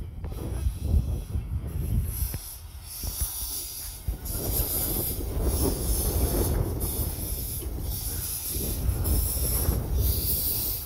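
1925 Vulcan narrow-gauge steam locomotive rolling slowly along the track, its steam hissing in a regular beat over a low rumble.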